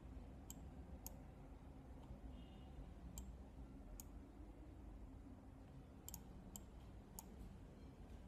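Computer mouse clicking: about eight sharp, scattered clicks, one a quick double, over a faint low room hum.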